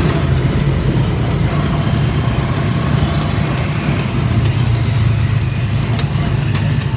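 A vehicle's engine running with a steady low drone, heard from inside the passenger cabin, with a few scattered light clicks and rattles.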